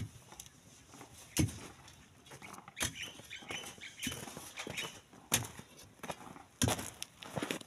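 A long-handled digging tool striking and prying into a wall of compacted sand and gravel, about six strokes at an uneven pace of roughly one every second or so. Some strokes are followed by a short rush of loosened sand and stones spilling down.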